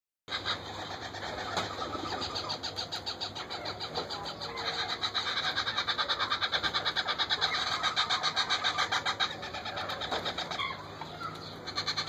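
Indian ringneck parakeet chicks begging with a rapid pulsing call while the parent feeds them. The calls grow louder about halfway through and ease off near the end.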